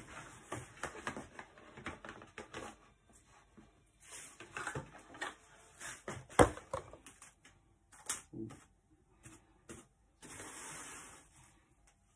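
A roll of plastic cling film being handled and pulled from its cardboard box, with scattered crinkles and clicks and a sharp knock about six seconds in. A steady rustle lasting about a second comes near the end.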